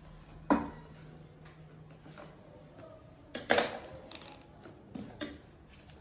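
Knocks and clatter of a boxed YouTube Silver Play Button being handled and opened: a sharp knock about half a second in, a louder cluster of clicks past halfway, and two lighter taps near the end.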